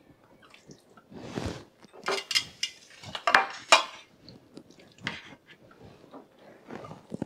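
A bare hand squishing and scooping soft mashed eggplant in a stainless steel bowl: irregular wet squelches and scrapes, with light clinks of the bowl and a ceramic dish.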